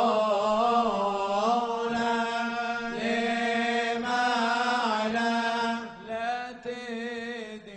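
Male voice singing a bakashot piyyut in a winding, ornamented melody over a steady held drone note; the singing softens about six seconds in.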